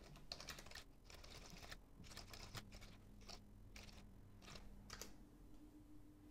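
Faint typing on a computer keyboard: several quick runs of key clicks that stop about five seconds in.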